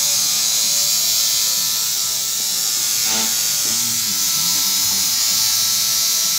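Tattoo machine buzzing steadily as the needle works ink into the skin.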